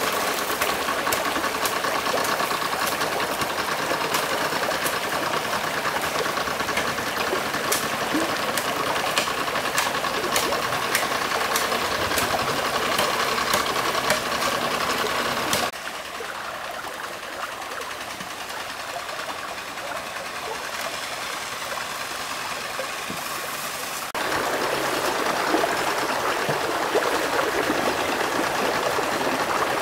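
Shallow stream rushing over rocks, a steady hiss, with many small clicks over the first half. The sound drops abruptly quieter about halfway through and comes back up near the end.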